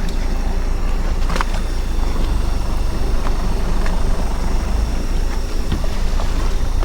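Fishing boat at sea: a steady low rumble with wind buffeting the microphone, broken by a few short clicks, the clearest about a second and a half in.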